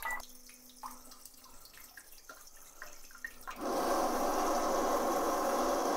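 LIVINGbasics LB-TL-MAX2 electric bidet seat starting its rear wash: a short beep, a faint hum as the nozzle moves out, then about three and a half seconds in the spray comes on and hisses steadily against plastic wrap stretched over the bowl.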